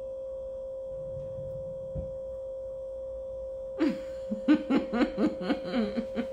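A woman laughing in quick repeated pulses, starting about four seconds in, over a steady high-pitched hum.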